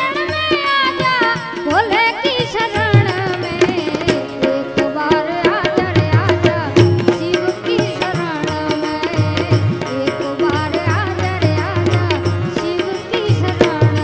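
A woman singing a Hindu devotional bhajan with an ornamented, gliding melody, accompanied by harmonium, with tabla and dholak drumming and small hand cymbals (manjira) keeping a steady beat.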